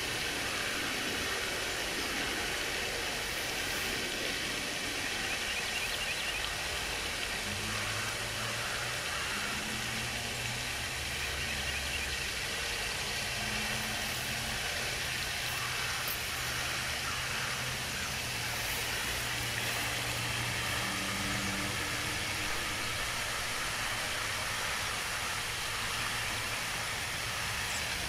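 Steady outdoor background noise: an even hiss with a low hum that comes and goes through the middle, like distant traffic.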